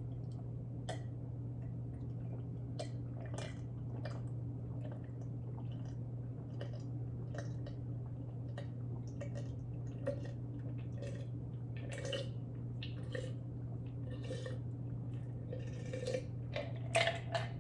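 Close-miked eating sounds: irregular soft wet clicks and smacks of chewing and mouth movement over a steady low hum.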